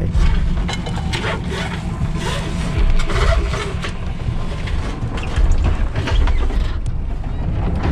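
Knocks and clatter of bottles and cans being handled in a sailboat cabin locker, over a steady low rumble.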